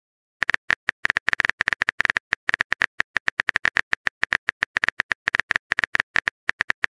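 Keyboard-typing click sound effect of a texting-story app, a rapid, slightly uneven run of short ticks as a message is typed out letter by letter, starting about half a second in.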